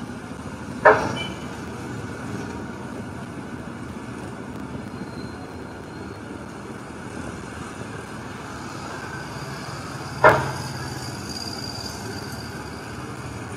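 A hydraulic excavator demolishing a timber-and-sheet-metal market building, its engine a steady low rumble under street noise. It gives two sharp bangs that ring briefly, one about a second in and one near the end.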